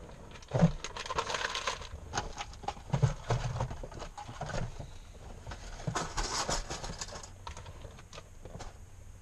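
Handling noise from a hand-carried camera: rustling, footsteps and irregular clicks and knocks as it is taken into a pickup truck's cab and set down, with a sharp knock about half a second in.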